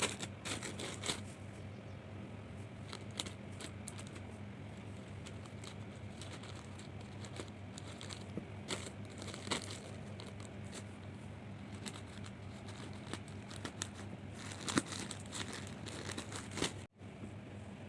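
Packaging crinkling and tearing as a parcel is opened by hand, in irregular crackles, over a steady low hum. The sound cuts out for an instant near the end.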